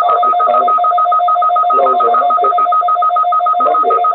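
Loud two-tone electronic alert signal on a weather radio broadcast. The upper tone pulses rapidly, with a muffled, garbled layer under it.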